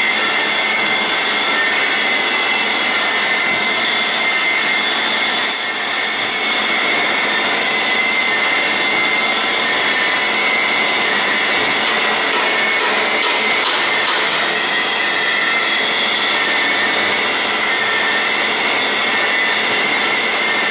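SHGF-42S servo-motor-driven three-fold garbage bag making machine running steadily in production: a continuous mechanical clatter and hum with a steady high whine. A brief hiss cuts in about five and a half seconds in.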